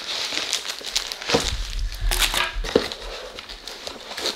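Plastic packaging crinkling and rustling as a bagged bead embroidery kit is handled and laid on a wooden table, with a couple of sharper knocks about one and a half and three seconds in.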